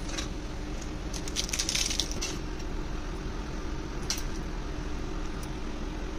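Steel spoon tapping and scraping on a plate as soft dahi bhalla is squished into chickpea curry: a quick run of clicks between one and two seconds in, then single taps around four and five seconds in, over a steady background hum.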